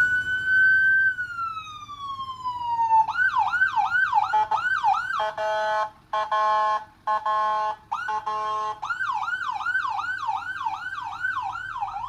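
Fire truck's electronic siren sounding loudly while being tested through its tones. First a slow wail that holds, then falls; then a fast yelp of about three sweeps a second; then three short flat horn blasts; then the yelp again.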